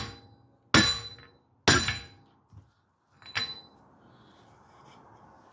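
Hammer blows driving a wheel bearing into a Subaru Outback hub without a press: two hard metal-on-metal strikes about a second apart, each leaving a high ring that dies away, then a lighter tap.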